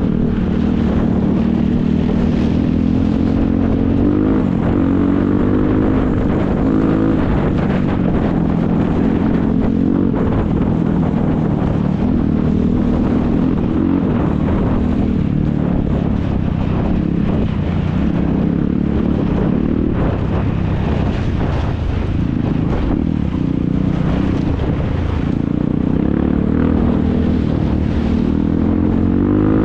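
ATV engines running hard, their pitch repeatedly rising and falling as they accelerate and ease off.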